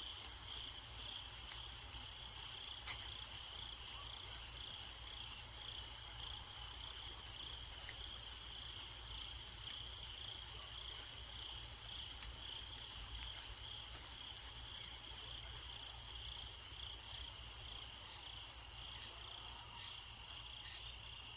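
Insect chirping, likely a cricket, in an even pulse about twice a second.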